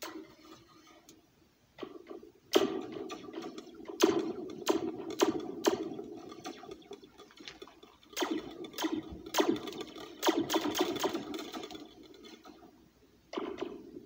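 A metal spoon tapping a metal slinky taped to a red plastic cup, each strike ringing through the spring into the cup as a springy, laser-gun-like zap. The taps come in quick irregular runs, one from about two and a half to seven seconds in and another from about eight to twelve and a half seconds in, with a few single taps around them.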